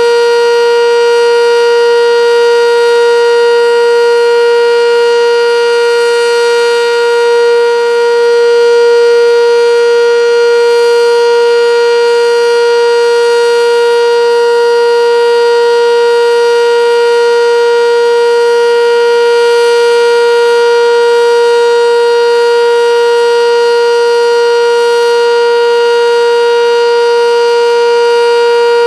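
Sentry 10V electromechanical outdoor warning siren sounding a full alert: one loud, steady tone held at constant pitch with no rise or fall.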